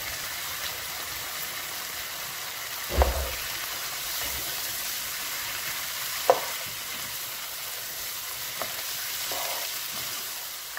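Cauliflower florets sizzling in hot onion-tomato masala in a frying pan while a spoon stirs them, a steady hiss. Two sharp knocks stand out, about three seconds in and again about six seconds in.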